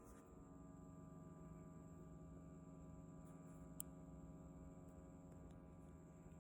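Xiaomi air purifier running faintly: a steady low hum with a thin, constant high-pitched whine, the high-frequency noise that the uploader traces to its rear laser dust sensor rather than the main fan motor. A single sharp click about four seconds in.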